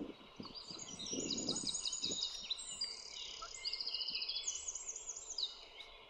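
Several small songbirds singing at once: high rapid trills and runs of repeated notes that overlap one another.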